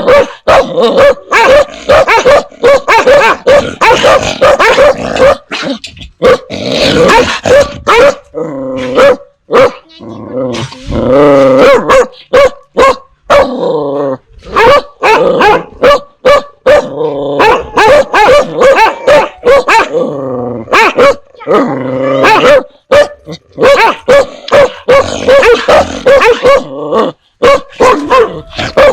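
Dogs barking fiercely, bark after bark in quick succession.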